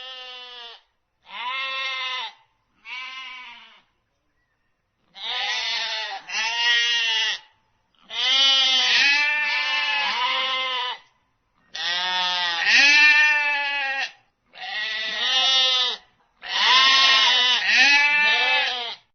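Goat bleating over and over, about nine wavering calls lasting from under a second to about three seconds each; the first three are shorter and quieter.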